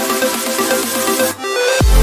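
Electronic dance music: a fast, thin synth pattern with no bass, a short break about one and a half seconds in, then a heavy bass drop just before the end.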